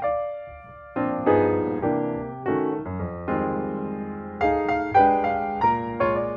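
Background piano music: chords struck and left to ring, with a brief lull just after the start before the playing resumes.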